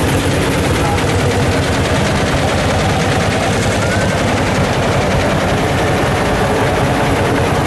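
Ursus tractor's single-cylinder two-stroke hot-bulb engine running, a loud, rapid, even train of exhaust beats.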